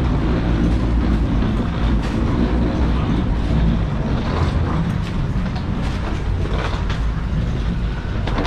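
Wheels of a rolling carry-on suitcase running along a jet bridge floor, with footsteps, making a steady low rumble.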